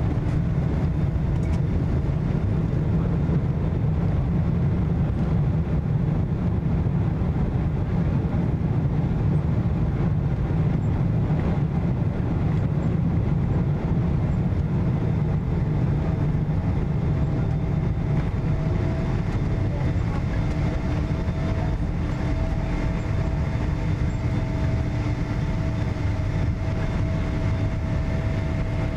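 Cabin noise of a Boeing 777-200 rolling along the runway just after landing: a steady low rumble from the wheels and airframe. A steady engine hum comes in about two-thirds of the way through.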